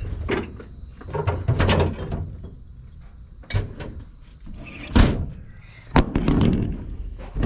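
A series of separate knocks and bangs, the loudest about five seconds in and another sharp one about a second later.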